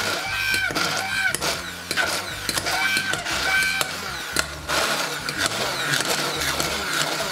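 Hand-held immersion blender running in a pot of sauce, its motor whining steadily as the blade churns the liquid, the pitch dipping and recovering several times as it loads up on chunks of vegetable.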